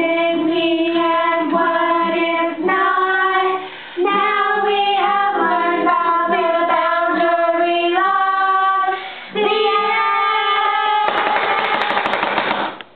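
Group of women singing together to an acoustic guitar, holding long notes. About eleven seconds in the song ends and gives way to a burst of clapping and cheering.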